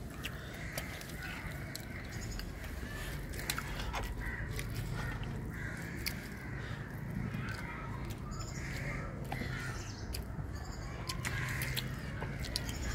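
Crows cawing again and again in the background, with scattered small clicks throughout.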